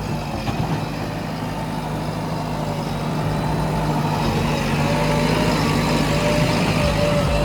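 Heavy diesel engine of earth-moving or farm machinery running steadily and growing gradually louder, with a wavering higher whine joining about four seconds in.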